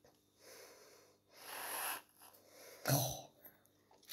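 Aerosol can of whipped cream spraying in short hissing bursts: a faint one, a stronger one in the middle, and a brief sharper one about three seconds in.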